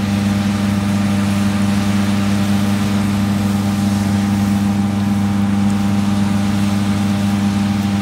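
Combine harvester running steadily while cutting barley: a loud, even engine and threshing hum.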